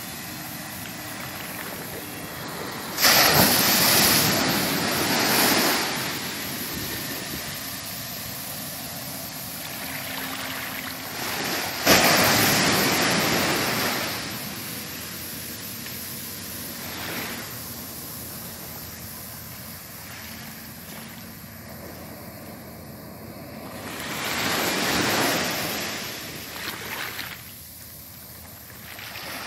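Small waves washing onto a sandy beach, with wind on the microphone. Three loud rushes of noise stand out: sharp ones about three and twelve seconds in, and a slower swell around twenty-five seconds in.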